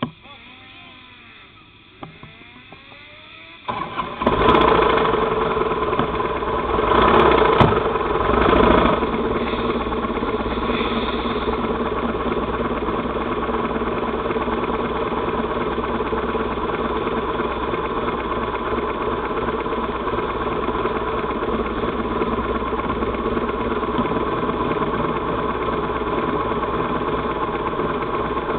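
Kawasaki sport motorcycle engine starting about four seconds in, revved a few times, then idling steadily.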